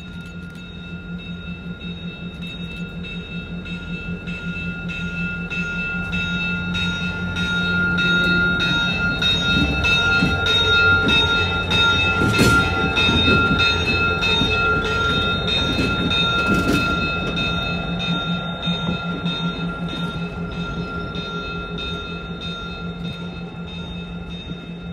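Railroad crossing bell ringing steadily while an EMD GP38-2 diesel locomotive rolls past with its 16-cylinder prime mover running. The locomotive grows louder to a peak about halfway through, with a couple of sharp wheel clacks, then fades as it moves away.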